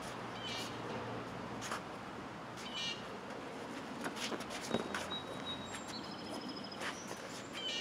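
Birds chirping and whistling, including one held high whistle, over a few short sharp knocks from two training longswords clashing and fencers' feet on the hard court.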